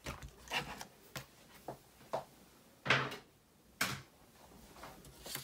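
Die-cut cardstock and cutting plates being handled on a craft mat: a series of short paper rustles and light knocks, the loudest about three seconds in, with a sharp tap just before four seconds.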